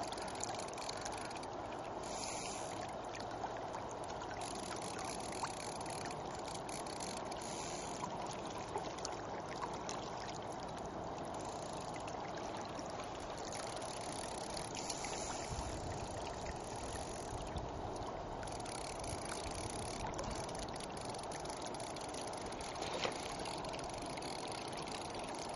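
Steady rushing of river water flowing past, with a few faint ticks.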